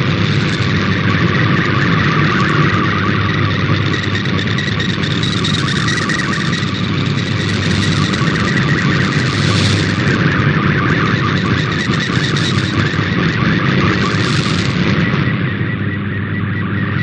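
Shortwave radio receiver carrying a digital MFSK image transmission, a steady, dense warbling data signal buried in loud static and interference hiss.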